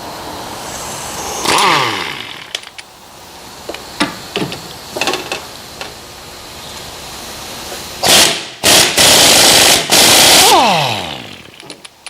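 Cordless impact wrench hammering to break loose a rear shock fastener: a short burst about a second and a half in, then a long loud run broken by two brief pauses near the end. After each burst the motor winds down with a falling whine. Metal clinks from the tool and parts sound in between.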